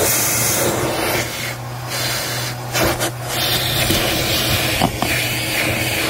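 Bissell Helix vacuum cleaner running with its crevice tool on car floor carpet: a steady motor hum under a rushing suction hiss. The hiss dips briefly twice, around two and three seconds in, and there is a single sharp click about five seconds in.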